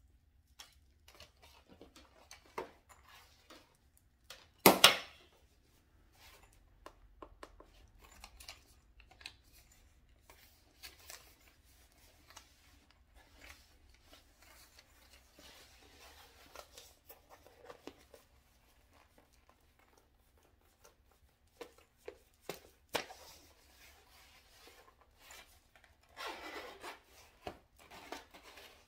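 Handling noises of an electric massage pillow and its power cord: scattered clicks, taps and rubbing of its mesh fabric, with one loud knock about five seconds in and a longer stretch of rubbing near the end.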